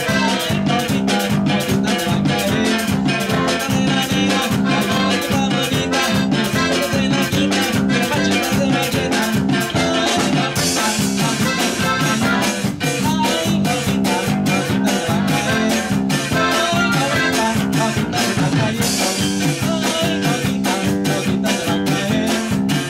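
Norteño band playing live: button accordion carrying the melody over a bajo sexto, electric bass and drum kit, with a steady beat.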